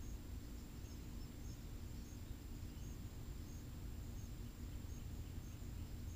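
Outdoor ambience: a short high chirp repeats about every two-thirds of a second over a steady low rumble and a faint hum.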